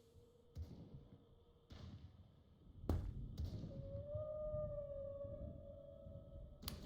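A drawn-out, whale-like tonal moan of unknown origin, slightly wavering in pitch, starts about halfway through and lasts about three seconds. Several sharp knocks come before it and one more near the end.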